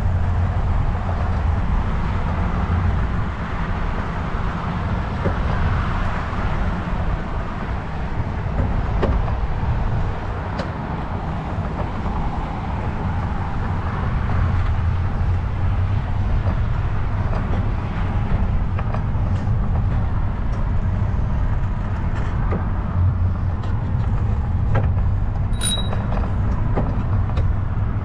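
Steady low rumble of wind buffeting the microphone of a camera carried along on a moving bicycle.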